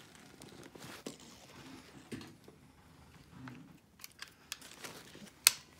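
Small plastic clicks and rustling of nylon webbing as fingers work and rock a plastic sternum-strap slider onto its track on a backpack shoulder strap, with one sharp click near the end.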